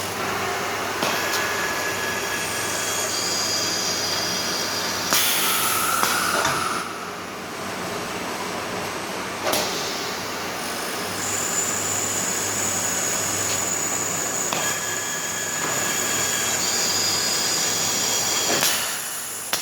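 Vacuum paint dosing machine running: a steady low hum under a high thin whine, with a loud burst of hissing air about five seconds in and a few sharp clicks.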